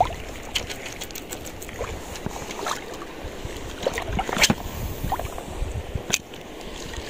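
Small waves lapping in shallow water, with scattered sharp clicks and knocks; the loudest comes about four and a half seconds in, another just after six seconds.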